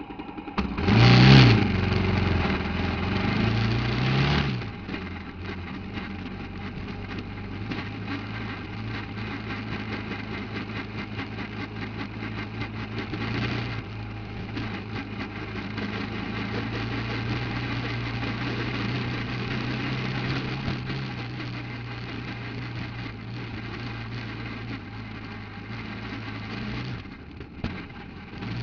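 Off-road buggy engine revving up hard about a second in and staying loud for a few seconds, then settling into a steady run.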